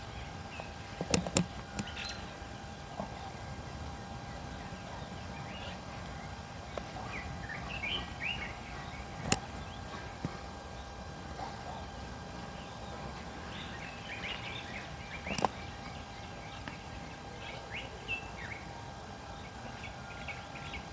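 Birds chirping in short, scattered calls over a faint steady hum, with a few sharp clicks, the loudest about a second in and again around nine and fifteen seconds.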